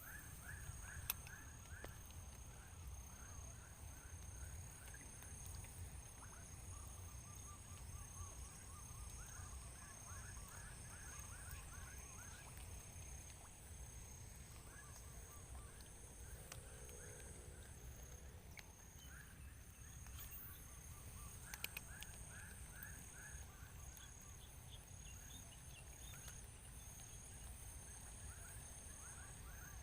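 Outdoor wetland ambience: trains of short, rapidly repeated animal calls come and go over a steady high insect hum and a low rumble. There is a sharp click about a second in and another about two-thirds of the way through.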